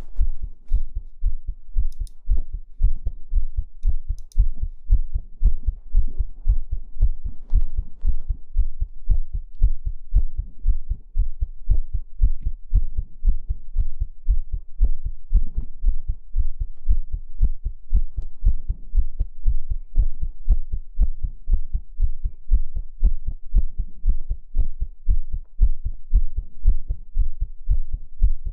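Heartbeat sounds: a steady, even rhythm of low, muffled thumps beating over and over without a break.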